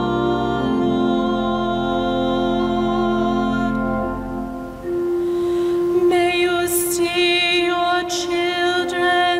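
Church organ holding sustained chords that fade out about four seconds in, then a female cantor singing with vibrato over a held organ note, likely the responsorial psalm.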